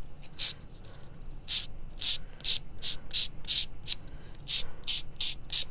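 Nail file rasping in short strokes against the edge of a small paper-covered cutout, about two strokes a second with a pause near the start. It is sanding away the leftover white edge of scrapbook paper.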